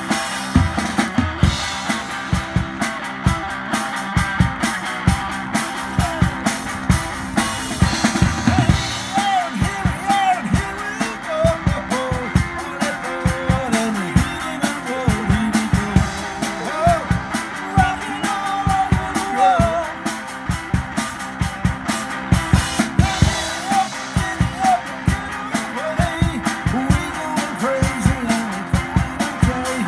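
Rock music with a steady, driving drum-kit beat and pitched notes over it.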